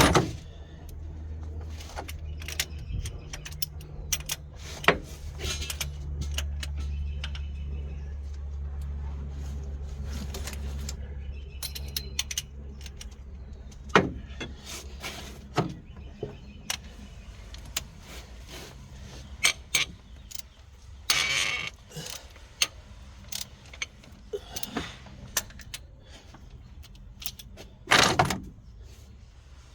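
Scattered metallic clicks, clinks and knocks of hand tools and engine parts being handled, with a couple of short rasping bursts. A steady low hum runs under them and fades out about halfway through.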